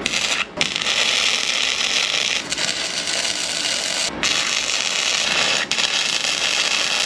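Titanium flux-core wire-feed welder running a weld bead on steel, a steady sizzling noise that stops briefly about half a second in, about four seconds in and near six seconds as the arc is broken and restarted.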